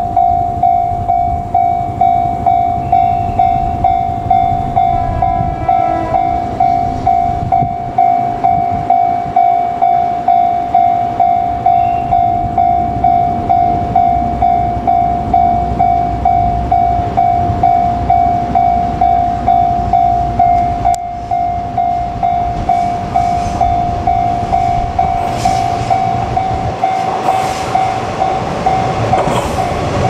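Japanese level-crossing warning bell ringing steadily, a single clanging tone about twice a second. Near the end a JR Kyushu KiHa 140 single-car diesel railcar approaches, its engine and wheel noise rising under the bell.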